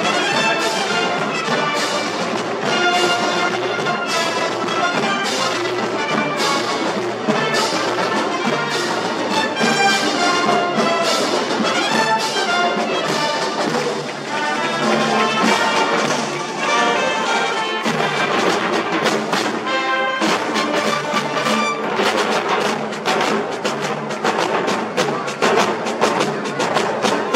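Parade marching band of brass instruments (trumpets, trombones, tuba) and drums playing a march, with the drum strokes growing busier near the end.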